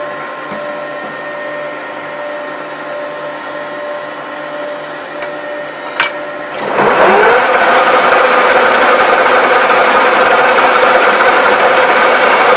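1V61 screw-cutting lathe running with a steady humming whine. About six seconds in there is a sharp click, then the spindle speeds up with a rising pitch and runs on much louder.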